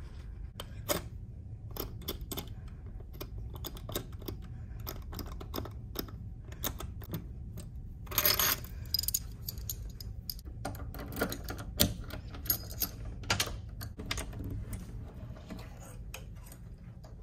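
Sharp clicks and metallic rattles of a wall-mounted key lockbox being worked open and its keys taken out, with a louder rattle about eight seconds in and a quick run of clicks from a key in the lock and the door's lever handle and latch.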